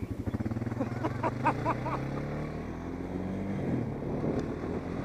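ATV engine accelerating along a gravel trail, its pitch climbing over the first couple of seconds and then settling lower, with wind noise on the helmet microphone.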